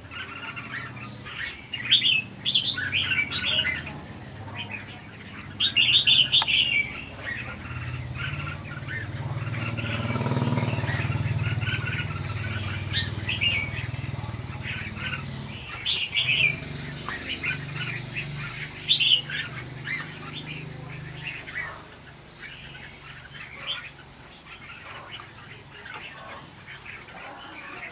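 Red-whiskered bulbuls giving short, sharp chirps again and again while squabbling over food, with fluttering wings. A low rumble swells and fades in the middle.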